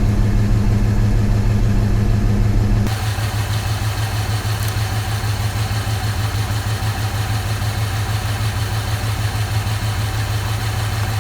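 1995 Ford F-150 engine idling steadily with a dead cylinder: cylinder 1's injector is getting no pulse from the PCM, causing the P0300 misfire. The background changes abruptly about three seconds in.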